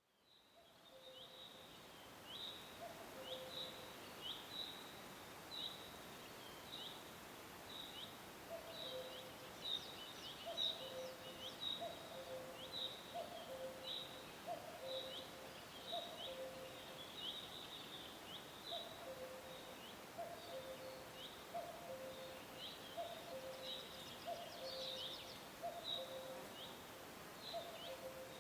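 Forest bird chorus: a cuckoo repeats its falling two-note "cuck-oo" about once a second, with a pause of a few seconds early on. Behind it another small bird gives short, high chirps in a steady run over a faint background hiss, all fading in over the first second or two.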